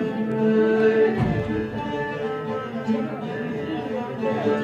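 Bağlama playing an instrumental passage of Alevi semah music over steady held drone notes.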